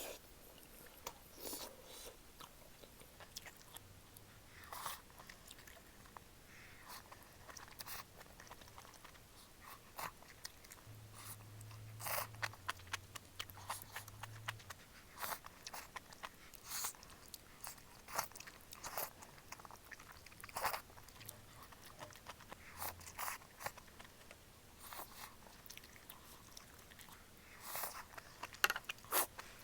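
A person chewing and biting into malatang close to the microphone. Crisp crunches and wet mouth clicks come at irregular intervals, with a denser run of bites about twelve seconds in and again near the end.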